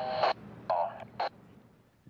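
Railroad radio voice transmission over a scanner, cutting off about a third of a second in, followed by a second short burst of radio voice about three quarters of a second in.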